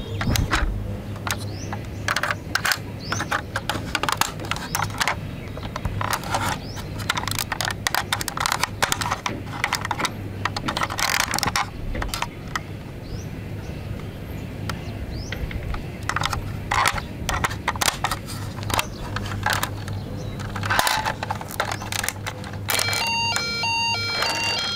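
Plastic clicks and knocks from a toy ambulance being handled, its doors snapping open and shut, over a steady low hum. Near the end the toy's electronic sound module starts, playing a repeating beeping tune after its roof button is pressed.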